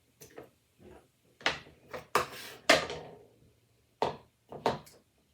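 Kitchen handling sounds: a run of knocks and clatters from utensils, dishes or containers being set down and moved, with a longer scraping rattle about two seconds in and the sharpest knock just under three seconds in.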